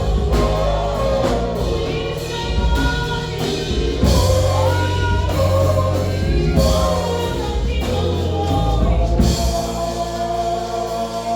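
A gospel choir singing with a band: sustained sung harmonies over bass and a drum kit.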